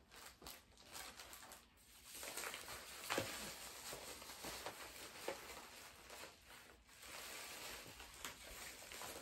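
Faint rustling and crinkling of plastic packaging and a padded mailer being handled, with a few small clicks and taps.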